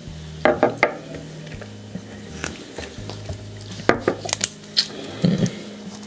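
Glass whiskey tasting glasses being set down and knocked on a wooden bar top: a handful of light, separate clinks and knocks spread through the moment.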